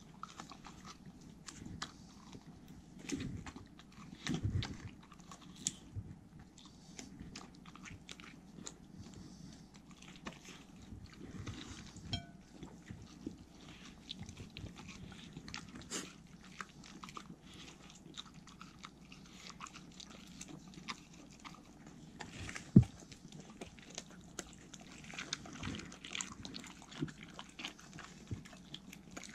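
Dogs, a Welsh corgi among them, biting and chewing pieces of peeled melon taken from a hand: many short irregular chewing clicks, with one sharp knock about three-quarters of the way through.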